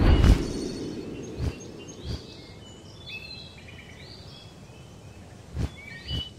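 Cartoon soundtrack: a whoosh at the very start as the bird flies past, then outdoor ambience with short bird chirps and a few brief soft knocks.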